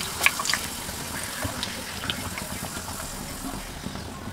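Hot oil sizzling steadily in a frying pan as a piece of dough fries, with a few light clicks of a metal slotted spoon against the pan in the first second or so.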